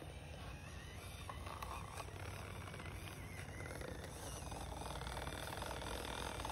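Small electric motor and gearbox of a 1/18 scale RC crawler truck whining as it drives over leaf litter, getting louder in the last couple of seconds.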